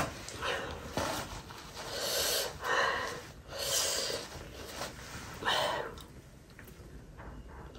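A woman's sharp sniffs and puffing breaths, about six in a row over the first six seconds, as she reels from the chili heat of spicy food. A short, sharp tissue rustle comes right at the start.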